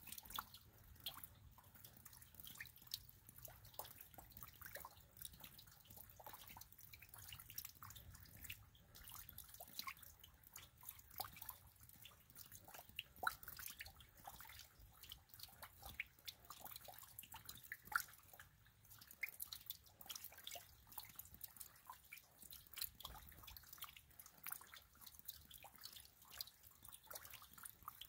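Light rain falling, heard as faint, irregular raindrop ticks.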